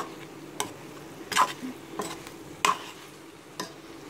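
A metal spoon stirring chicken, onions and tomatoes in an aluminium pressure-cooker pan, scraping and knocking against the pan about six times, the loudest about a second and a half in. A faint steady sizzle of the frying masala runs underneath.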